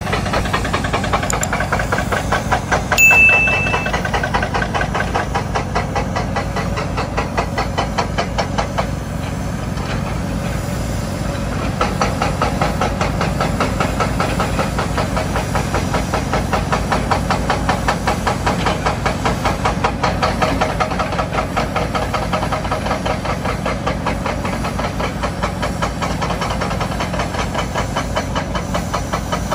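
Heavy excavator diesel engine running steadily with a fast, even throb. A short high beep sounds about three seconds in.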